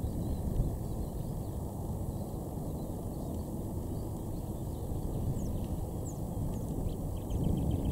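A steady low rumble of outdoor background noise, with a few faint, short, high bird chirps in the second half.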